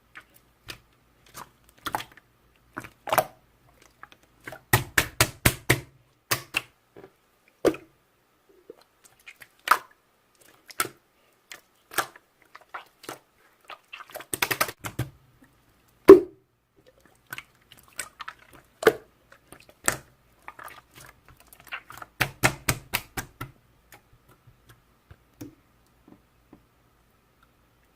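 Slime being pressed and poked, giving sharp clicks and pops of trapped air, some in quick runs of several, with one loud pop about halfway through.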